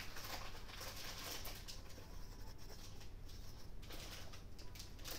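Soft rustling and many small irregular clicks from hands handling cross-stitch materials close to the microphone, over a faint steady low hum.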